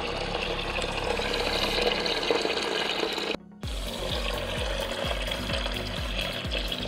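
Liquid pouring in a steady rush under background music. It is broken by a short cut a little past halfway, after which the music carries on with a steady beat.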